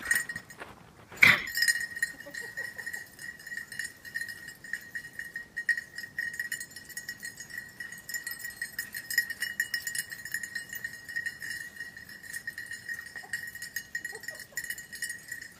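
A cowbell on a dog's collar clanking over and over as the dog moves, ringing on one steady pitch. There is one loud, sharp clank about a second in.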